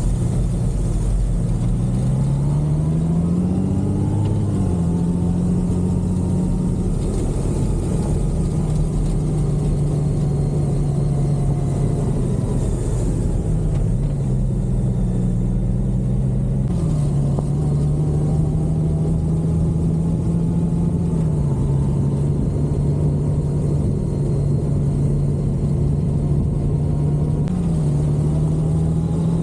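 Honda Gold Wing DCT's flat-six engine running under way, its pitch rising over the first few seconds, then holding and stepping up and down several times as the bike's speed changes.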